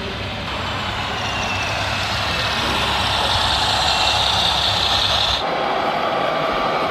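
Steady vehicle-like running noise with a low rumble and a hiss, cutting off abruptly about five seconds in. A different, steadier hum takes over.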